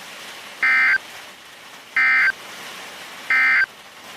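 Three short electronic data bursts of an Emergency Alert System SAME end-of-message signal, the digital tag that closes an EAS alert. Each burst lasts about a third of a second, about 1.3 seconds apart, over a steady rain-like hiss.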